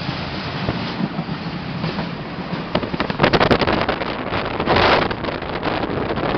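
Rushing wind and rolling rail noise heard from the open door of a moving passenger train as it passes a freight train on the next track. Rapid clicking and clattering of wheels begins a few seconds in, and a louder rush of noise comes about three-quarters of the way through.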